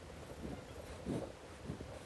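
Faint, irregular soft rubbing and bumping as gloved hands work gilt cream into a textured turned bowl, the sound sped up along with the footage.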